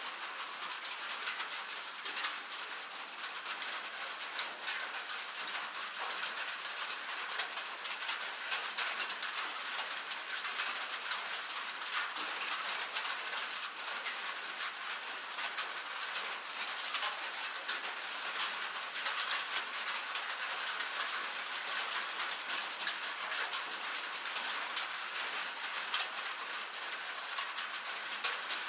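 Rain falling steadily on a metal roof: a dense, even patter of drops ticking on the sheet metal.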